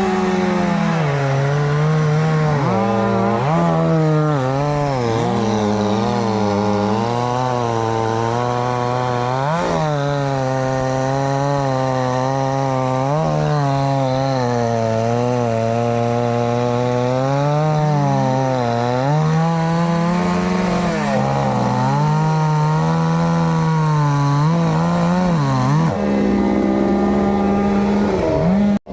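Two-stroke chainsaw cutting through tree wood, the engine's pitch repeatedly sagging as the chain bites into the cut and rising again as the load eases.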